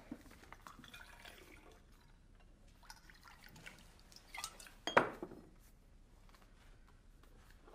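Drink being poured and drinking glasses clinking on a tabletop, with scattered small clinks and one sharp glass clink about five seconds in, the loudest sound.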